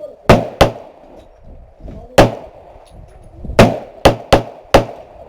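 Seven gunshots fired at an uneven pace: two close together just after the start, one about two seconds in, then four in quick succession from about three and a half seconds in, each a sharp crack with a short ringing tail.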